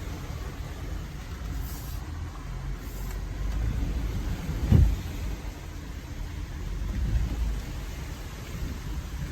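Jeep Gladiator Rubicon's 3.6 Pentastar V6 running as the truck crawls over rough trail, heard as a steady low rumble, with one sharp thump about halfway through.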